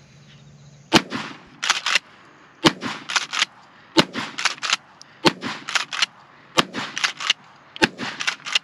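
Kel-Tec KSG 12-gauge pump-action bullpup shotgun fired six times in steady succession, about one shot every 1.3 seconds. Each shot is followed by the double clack of the pump being racked back and forward to chamber the next shell.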